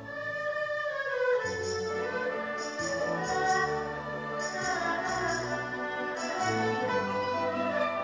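Chinese traditional orchestra playing a melody of sustained notes over low drum notes, with short bright metallic percussion strikes coming back every second or so.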